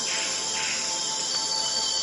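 Soft ambient drone music with sustained, held tones, layered over a steady chorus of crickets.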